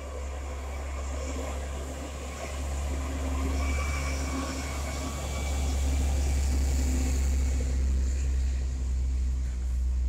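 A heavy lorry driving past on the road close by, its engine growing louder as it comes alongside about six seconds in, with cars following behind it.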